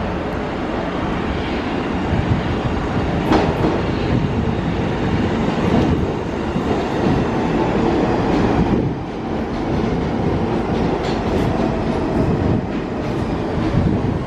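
R46 subway train pulling into the station alongside the platform: a steady rumble of wheels on rail, with a sharp clack every two to three seconds as the wheels cross rail joints.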